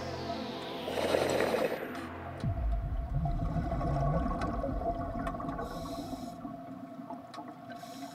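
Underwater-style sound design: a low drone, then a deep downward sweep about two and a half seconds in, giving way to a low, wavering, moaning rumble with faint clicks and two short bursts of hiss.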